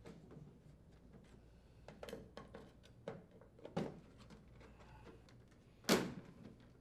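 Plastic front grill assembly of a Frigidaire window air conditioner being pried off with a putty knife: scattered clicks and knocks as the grill's tabs work loose, with one much louder sharp snap near the end.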